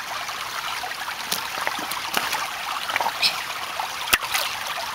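Shallow creek trickling steadily over stones, with a few small clicks and knocks near the water's edge and one sharper click about four seconds in.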